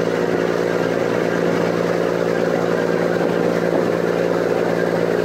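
Ferryboat's engine running steadily underway, a constant drone with no change in pitch or level.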